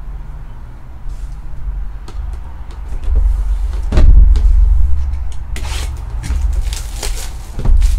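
Cardboard hobby box handled on a tabletop, with a heavy thump about four seconds in as it is set down in front of the microphone, then the crinkle and crackle of its plastic shrink wrap being peeled off, and another thump near the end.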